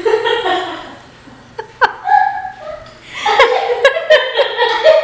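A woman laughing in bursts, building into a run of quick, choppy laughs from about three seconds in, with a sharp click about two seconds in.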